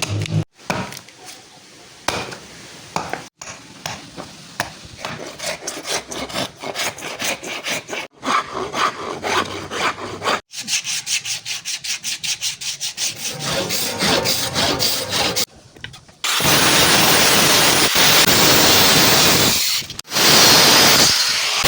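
Quick back-and-forth rasping strokes of a hand tool working the arrow stock, several a second, in short stretches. About five and a half seconds before the end they give way to a steady loud hiss, broken briefly near the end.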